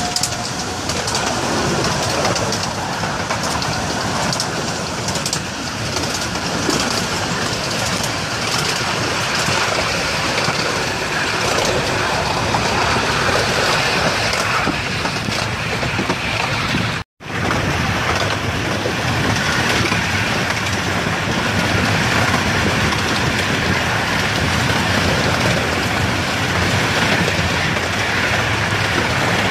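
Steady running noise of 15-inch-gauge Romney, Hythe and Dymchurch Railway trains at speed, heard from an open coach with another train running alongside on the parallel track: a rumble and rattle of wheels on rail with light clicks. The sound cuts out for an instant about seventeen seconds in.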